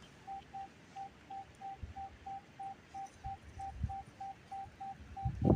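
Metal detector's target tone: short, evenly spaced beeps at one mid pitch, about three a second, over a strong target, a 'screaming signal'.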